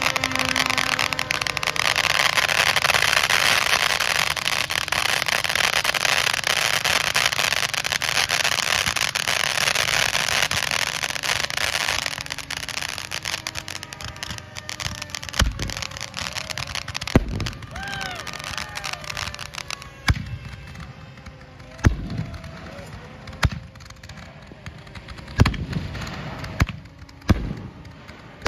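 A ground fireworks fountain spraying with a dense crackling hiss for about twelve seconds, then a string of about seven sharp firework bangs, a second or two apart, as aerial shells go up and burst.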